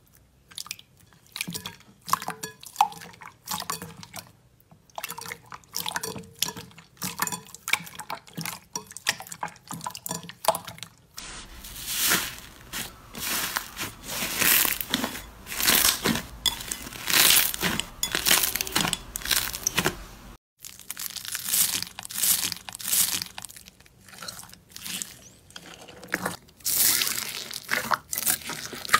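Hands pressing and kneading slime in a bowl, making an irregular stream of wet squishes, clicks and crackling pops. The sound changes twice, about 11 and 20 seconds in, as a different slime is worked. In the last part the slime is mixed with foam beads.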